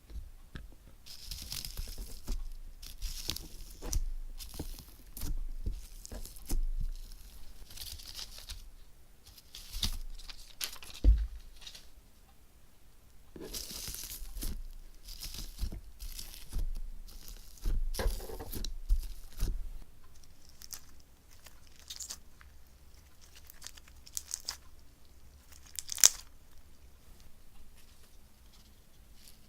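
Slime with fishball beads and gold leaf being squeezed and worked by hand, crackling and crinkling in irregular bursts, with a few sharper pops and clicks.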